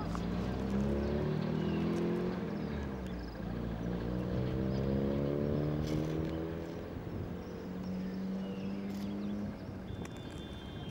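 Motor vehicle engines running, their pitch gliding up and down over several seconds as they accelerate and pass.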